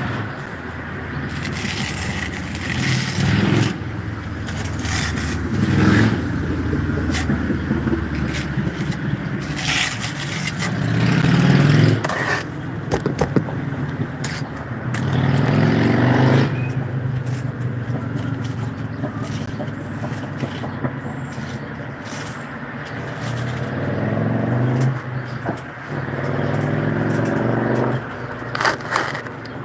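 An engine running, its pitch rising and falling several times, with scrapes and sharp clicks throughout.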